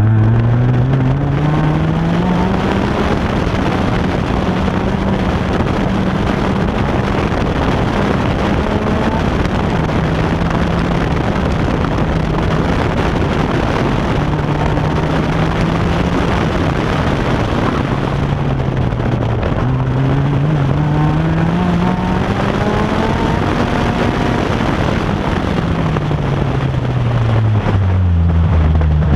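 Autocross car's engine running through a timed run. Its pitch climbs, holds, dips and climbs again as the car speeds up and slows, then falls away near the end. A heavy rushing noise of wind and overloaded microphone lies over it.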